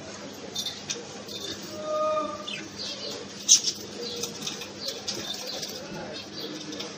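Pet budgerigars chirping and chattering, with short high chirps scattered throughout and one sharp, louder note about halfway through.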